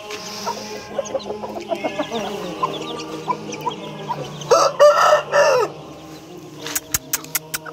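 Chicks peeping continually, with a rooster crowing once in the middle, the loudest sound. A few sharp clicks near the end.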